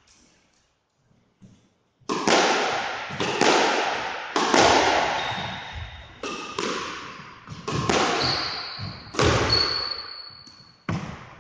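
Squash rally: sharp cracks of racket on ball and ball off the wall, about one a second from roughly two seconds in, each ringing out in the court's echo. Several times a high squeak of sneakers on the wooden floor lasts about a second.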